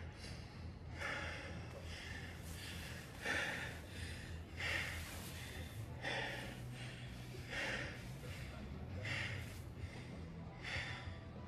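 Close, heavy breathing: breathy gasps and exhales about every second and a half, over a faint low steady hum.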